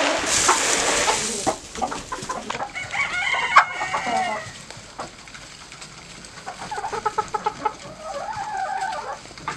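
A flock of chickens clucking and calling as they feed, in two spells of calls. A rush of rustling noise comes in the first second and a half.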